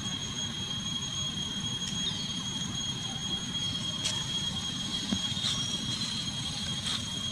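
A steady high-pitched whine holds one unchanging pitch throughout, over a low, even outdoor background hiss, with a few faint clicks.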